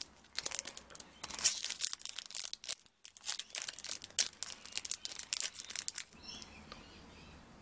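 Foil booster-pack wrapper of a Pokémon trading card pack crinkling and tearing as it is ripped open by hand. It is a run of crisp rustles for about six seconds, with a brief pause about halfway, then it goes quiet.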